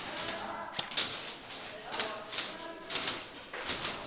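Airsoft guns firing in short rapid bursts of sharp clicking cracks, about one burst a second, with faint distant voices of players underneath.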